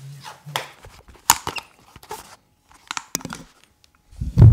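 Handling noise as a person settles into a leather armchair: scattered clicks, knocks and rustling, then a loud, low thump near the end.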